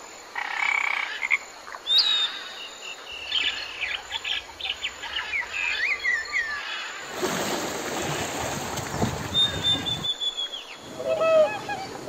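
Tree frog croaking in a short burst in the first second or so, followed by scattered bird chirps and sliding whistled calls. A louder, harsh noisy stretch runs for about three seconds in the second half, and a steady high whistle and more calls come near the end.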